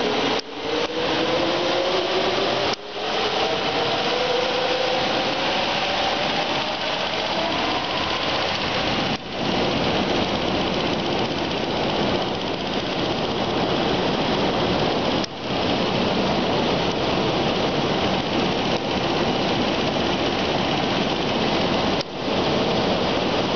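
CNC air plasma cutting machine running: a loud, steady hiss, with a faint whine rising in pitch over the first eight seconds. The hiss breaks off for a moment about five times.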